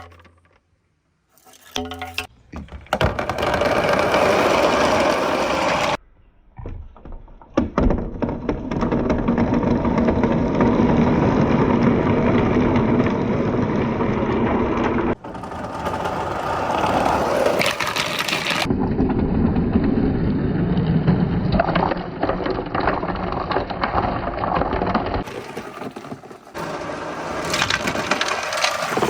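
Many marbles rolling and clattering down wooden marble-run tracks: a dense, continuous rattle of small knocks. It changes abruptly several times, about six, eight, fifteen, nineteen and twenty-five seconds in.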